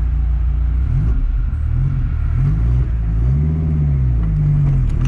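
Dodge Viper V10 accelerating hard from a stop. A steady low engine note gives way, about a second in, to revs that rise and fall several times as it pulls through the gears.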